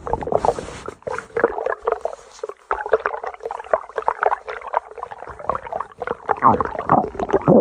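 Stomach growling and gurgling without a break, a rapid, irregular bubbling that grows louder near the end.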